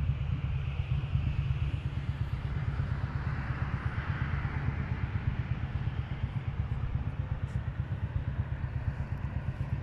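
Outdoor city ambience: a steady low rumble of wind buffeting the phone's microphone, over a hiss of road traffic that swells about four seconds in.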